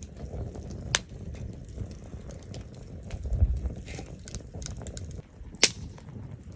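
Wood fire burning in a Coleman Fire Disc bonfire stand, crackling with scattered small ticks and two sharp pops, one about a second in and one near the end, over a low rumble.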